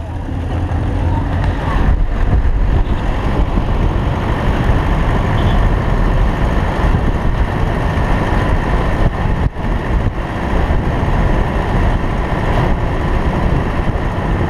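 Motor vehicle driving along a road, heard from on board: a steady engine and road rumble, heaviest in the low end, with a brief dip about two-thirds through.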